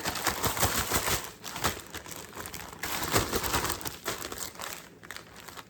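Crinkling and rustling as whole catfish are coated in cornmeal batter, a dense run of small crackles that dies away near the end.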